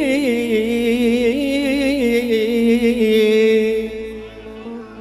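A man singing an Arabic mawwal into a microphone, holding one long ornamented note with a wavering vibrato. The voice stops about four seconds in, and a steady backing tone carries on softly.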